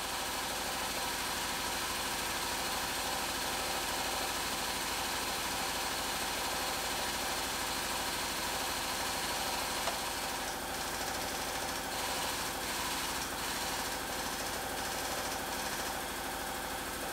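Frame-straightening rack's hydraulic pump running with a steady hum while its chain pulls on the crushed rear body panel.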